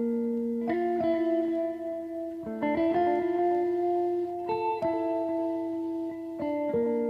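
Background music: a guitar playing slow sustained chords that change about every two seconds.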